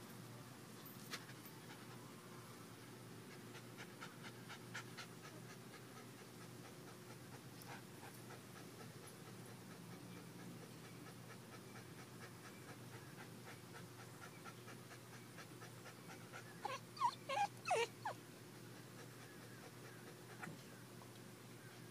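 Pit bull puppy panting softly. A quick run of loud, high-pitched squeaky calls comes about seventeen seconds in.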